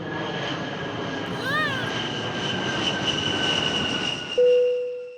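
Steady rumbling vehicle noise with high whining tones that sag slightly in pitch. A short rising-and-falling chirp comes about one and a half seconds in, and a loud steady tone starts near the end.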